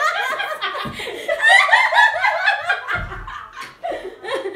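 Two women laughing hard together, in loud, choppy bursts of giggling and cackling.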